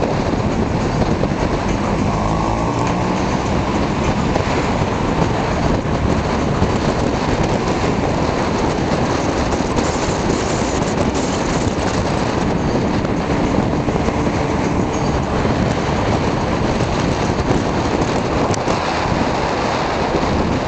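Car engine and road noise heard from inside a moving car's cabin: a steady, fairly loud rush with a faint engine hum underneath.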